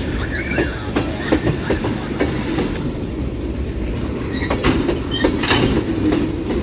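Freight cars of a long mixed freight train rolling past at close range: a steady rumble with an irregular clickety-clack of the wheels over the rail joints.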